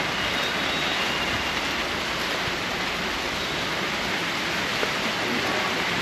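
Steady hiss of rain falling on wet ground and parked cars.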